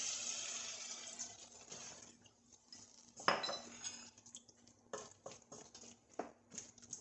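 Broth poured into a hot pan of meat and vegetables sizzles and fades away over the first two seconds. About three seconds in comes a sharp, ringing clink, then a wooden spoon stirring the stew knocks against the pan several times.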